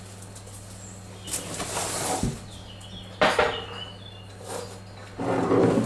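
Kitchen rummaging: things being knocked and moved about in a cupboard. There is a sharp knock a little past halfway with a brief high squeak after it, and a louder clatter near the end, all over a steady low hum.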